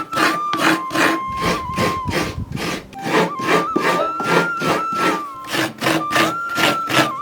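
Rhythmic scraping strokes, about three a second, steady throughout. A flute melody of background music plays over them.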